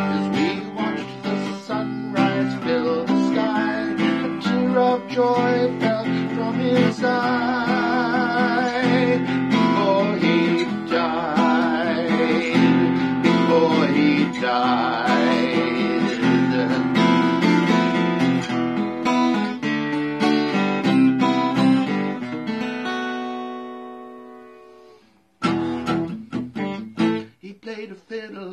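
Cutaway acoustic guitar picking and strumming chords in an instrumental break of a slow folk-blues song. Near the end a chord rings out and fades almost to silence, then the strumming starts again.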